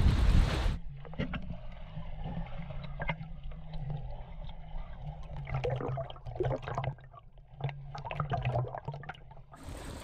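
Wind buffeting the microphone for under a second, then cut off abruptly by muffled underwater sound from a submerged camera. The underwater part is a steady low hum with scattered clicks and bubbly crackles from a swimmer moving through the sea.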